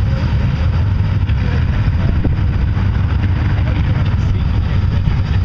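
Vehicle engines running together in a steady low rumble, from off-road trucks and a farm tractor working in a mud pit.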